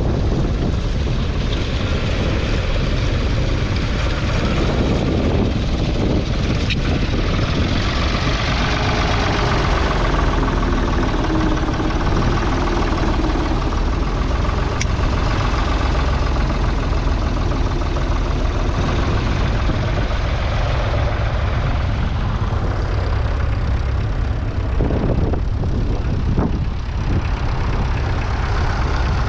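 Ford 3000's 2.9-litre three-cylinder diesel engine running steadily, heard close up from the tractor as it pulls a mounted plough.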